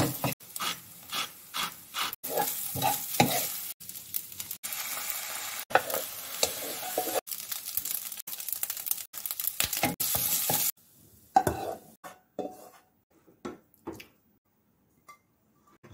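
Egg fried rice sizzling in a hot nonstick wok while a wooden spatula stirs and scrapes it in repeated strokes. About ten and a half seconds in, the sizzling stops and a few soft knocks of a spoon pressing rice into a bowl follow.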